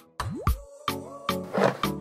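Background music with a regular beat, about two and a half beats a second, and a quick pitch slide upward near the start.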